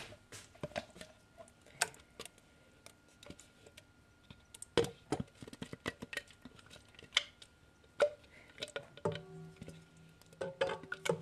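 Irregular clicks, taps and knocks of a spatula scraping blended sweet potato mixture out of a plastic NutriBullet blender cup into a stainless steel mixing bowl. A steady low tone comes in about nine seconds in.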